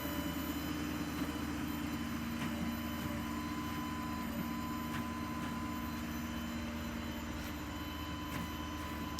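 A steady mechanical drone from an engine or motor running, with a constant low hum and a fainter high whine and a few light clicks.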